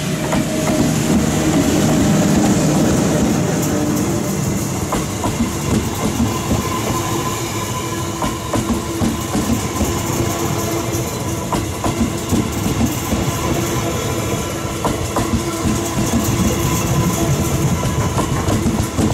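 Electric locomotive passing close at speed, followed by a long train of double-deck passenger coaches. It is loudest about two seconds in as the locomotive goes by, then settles into steady rolling noise with the clickety-clack of the coach wheels over the rail joints.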